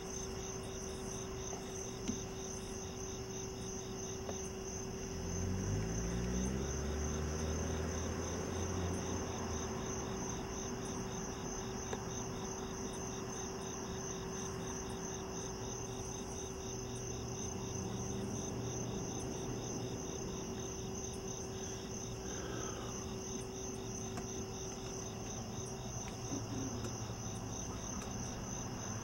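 Night insects, crickets, chirring steadily in a fast, even pulse, with a faint steady hum underneath. About five seconds in, a low droning sound rises in pitch, then fades over the next few seconds.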